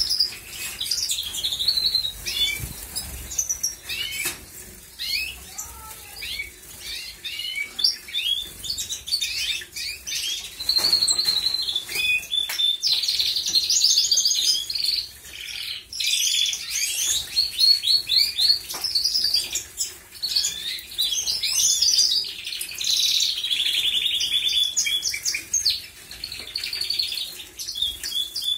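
Canaries singing a continuous song of fast trills and warbles, with splashing and wing flutters from a bird bathing in a shallow water dish.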